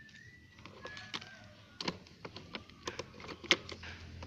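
Wooden toy train cars and track pieces clacking against each other and the plastic storage box as they are put back in: a string of sharp knocks in the second half, one louder than the rest.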